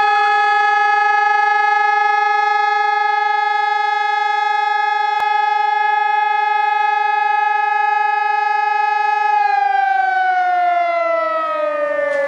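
Fire station siren sounding one long steady tone, then winding down, its pitch falling smoothly, about nine seconds in.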